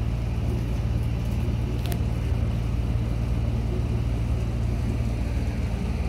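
Steady low rumble of an idling vehicle engine, with one short click about two seconds in.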